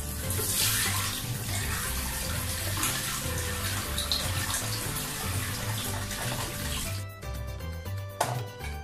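Hot frying oil sizzling around a metal ote-ote moulding ladle held in a wok to heat it, with bits of leftover batter in the ladle frying. The sizzle cuts off about seven seconds in, and a single sharp knock follows near the end.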